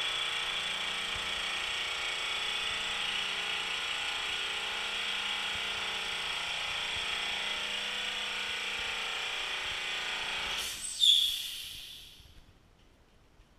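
SL-310 oil-free air compressor running steadily. Near the end its motor stops, with a sudden short, loud burst of hissing air that fades out within a second or two.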